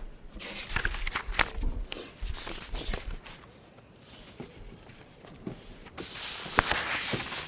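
Rustling and light knocks of papers being handled at an outdoor podium microphone, with low wind rumble on the mic early on and a longer stretch of rustling noise near the end.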